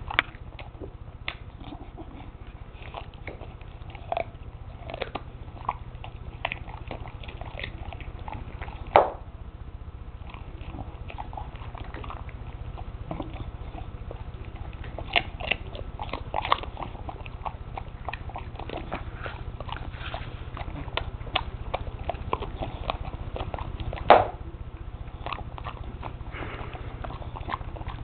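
Bulldog crunching and chewing a raw carrot: irregular crisp crunches and smacks, with two much louder bites, about nine seconds in and again near twenty-four seconds. A constant low hum sits underneath.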